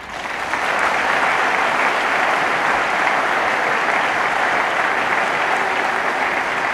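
Large audience clapping together, a dense steady applause that sets in at once and begins to thin near the end.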